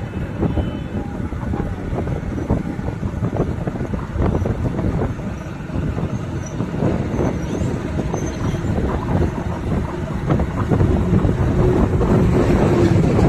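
Loud, continuous rumble of a vehicle, without a clear engine note, rising a little near the end.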